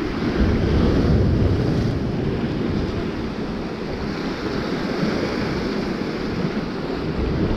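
Sea waves surging and breaking over the rocks of a jetty, with wind buffeting the microphone; the surge swells about a second in.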